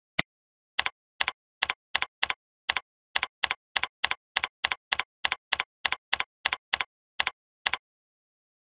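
One click, then computer keyboard keystrokes at a steady typing pace of two to three a second, each a short double click, as a name is typed in; the typing stops about a second before the end.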